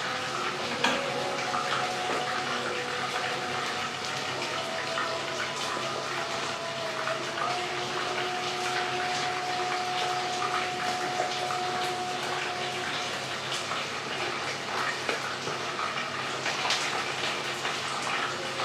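Flour-coated chicken pieces deep-frying in a pot of hot oil: a steady sizzle with constant small crackles as the pieces are turned with tongs.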